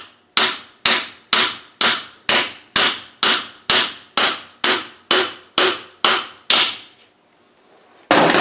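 A hammer striking a socket used as a drift, steel on steel, tapping a part down into an R380 gearbox casing: about fifteen evenly paced, ringing blows, roughly two a second. Near the end comes a louder metallic clatter as tools are put down.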